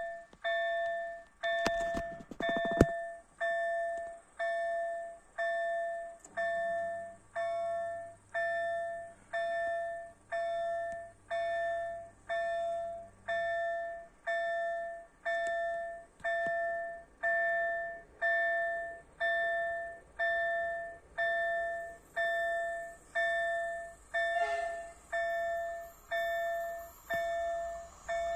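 Level-crossing warning signal (KLD4103 electronic bell) ringing a steady repeated ding, about four strikes every three seconds. Under it, the RHR-95 barrier drives hum as the barriers lower, from about six to thirteen seconds in. A sharp click comes about three seconds in.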